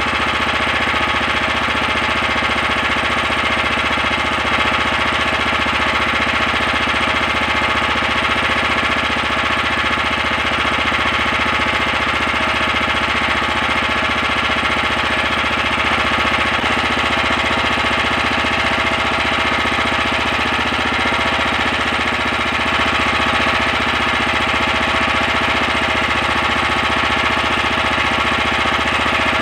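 Small boat engine running steadily at an unchanging speed, loud and even throughout.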